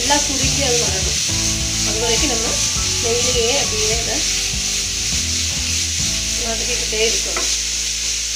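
Grated carrots sizzling steadily as they fry in ghee in a nonstick pan, while a spatula keeps stirring and scraping them around. The carrots are being fried down until they shrink, before any milk goes in.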